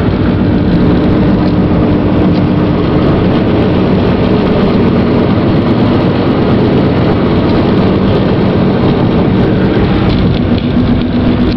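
Steady engine drone and road noise heard from inside a moving car.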